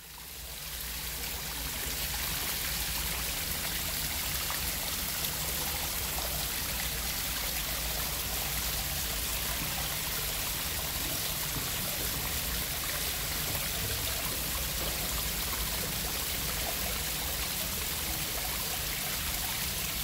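Water running steadily over rocks in a small cascade, trickling and splashing into a shallow pool. The sound fades in over the first second or two.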